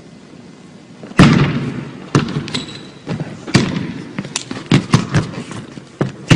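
A basketball bouncing on a hardwood gym floor: one loud echoing hit about a second in, then a run of uneven dribbles, with a short high sneaker squeak in the middle.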